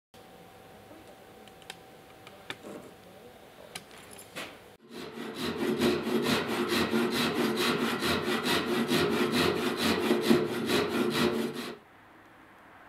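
Flush-cut hand saw cutting wood in quick, even strokes, about five a second, trimming the protruding wedges of a wedged tenon flush. A few light clicks come before the sawing starts about five seconds in, and the sawing stops shortly before the end.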